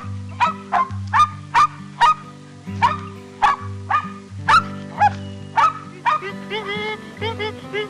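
Dog barking repeatedly, about two barks a second, with the barks turning quicker and shorter near the end, over background music.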